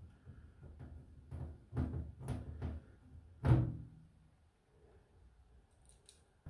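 Hand rivet nut tool working a riv nut in a sheet-steel cabinet panel: a string of short clicks and knocks, then one loud knock with a brief ring about three and a half seconds in.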